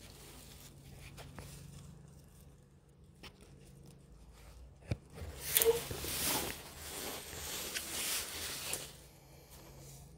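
Handling noise: a sharp click about five seconds in, then about four seconds of rustling and scraping as a knit-gloved hand moves against the phone and a leafy twig.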